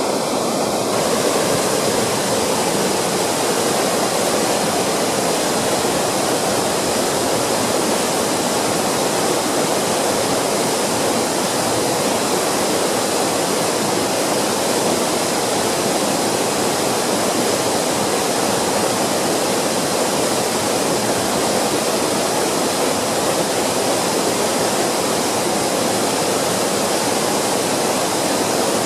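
Waterfall: falling water rushing steadily and loudly, an unbroken wash of noise.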